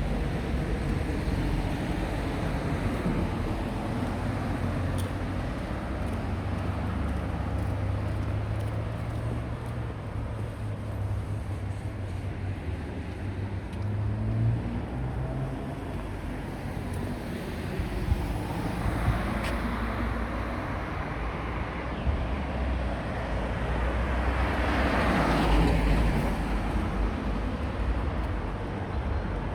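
City street traffic: a steady low rumble of vehicles, with two vehicles passing closer in the second half, the louder one swelling and fading near the end.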